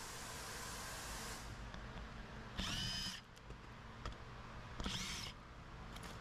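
Ridgid cordless driver spinning a socket in two short bursts, backing out the fasteners that hold the lower bumper cover and undertray. Each burst is a brief whine that bends in pitch as the motor speeds up and slows. A steady hiss runs through the first second and a half.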